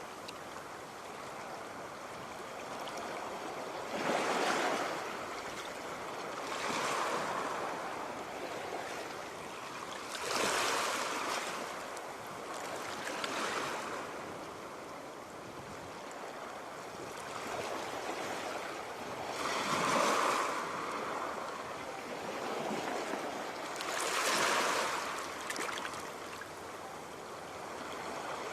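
Sea waves washing onto the shore, surging every few seconds with a steady hiss of water between.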